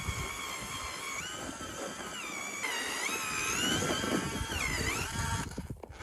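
Power ice auger boring a hole through thick lake ice. Its motor whine wavers and dips in pitch as the blades bite, then stops about five and a half seconds in.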